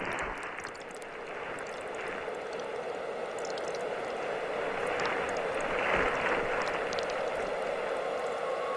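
A steady rushing noise, like running water, with scattered faint crackles, growing slightly louder.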